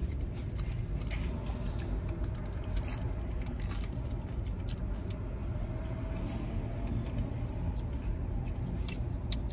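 Steady low rumble of motor vehicles, with scattered small clicks.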